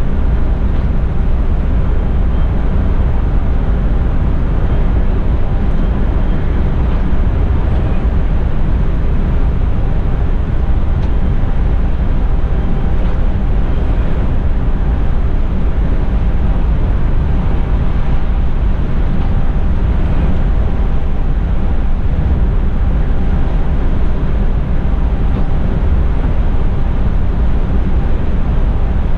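Cab noise of a Mercedes-Benz Tourismo coach cruising at highway speed on a wet road: a steady, loud low rumble of engine and tyres with road hiss over it, unchanging throughout.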